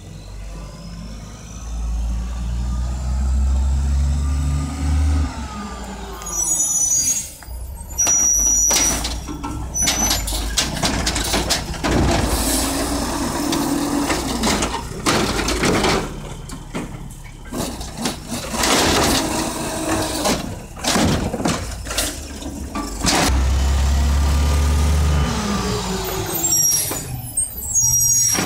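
Mack LE garbage truck with an Amrep automated side-loader arm: the diesel engine revs as the truck pulls up, and the air brakes hiss. Then comes a long run of bangs and clatter as the arm lifts and shakes a trash cart out into the hopper. The engine revs again as the arm works back down, with another air-brake hiss near the end.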